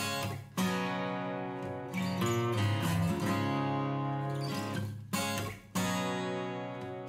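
Background music led by strummed acoustic guitar, its chords changing every few seconds.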